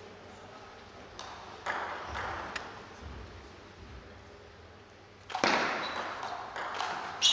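Celluloid-type table tennis ball clicking sharply as it bounces and is struck, a few separate clicks in the first half. About five seconds in, a sudden, much louder stretch of noise begins, with more clicks in it.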